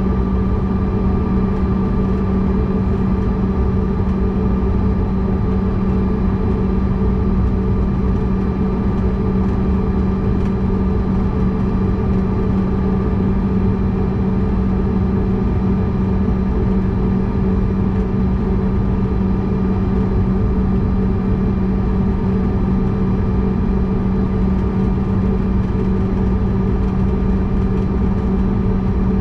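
Steady cabin drone of a CRJ-200's rear-mounted GE CF34 turbofans at taxi power, heard from inside the cabin: an unchanging low hum with a fainter high whine over a rumble.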